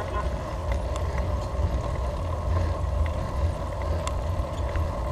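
Road bicycle being ridden: steady tyre and road noise under a strong, gusting rumble of wind on the microphone, with a few light ticks.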